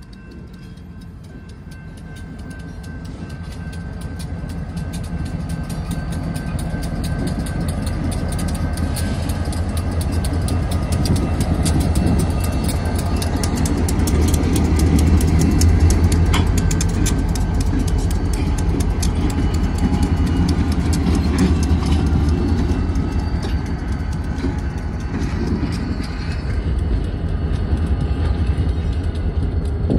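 Two Great Lakes Central diesel locomotives running light at low speed, their engines rumbling. The sound grows louder as they approach, is loudest about halfway through as they pass close by, then eases off a little.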